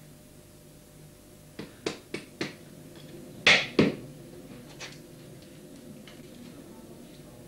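Mallet striking a woodcarving chisel into wood. There are four quick knocks a couple of seconds in, then two louder blows at about three and a half seconds, and one light tap near five seconds.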